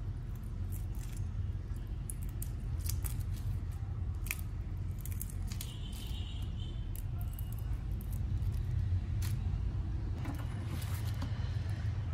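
Light clicks and crackles of raw shrimp shells being peeled and heads pulled off by hand over a metal bowl, over a steady low hum.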